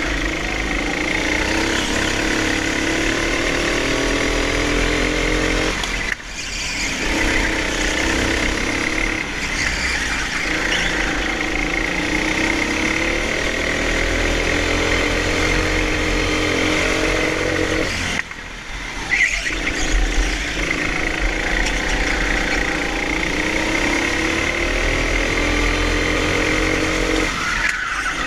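Hire go-kart engine revving, heard from the driver's seat. Its pitch climbs along each straight and drops away briefly twice, about six and eighteen seconds in, as the driver lifts off for corners. A steady high whine runs alongside it.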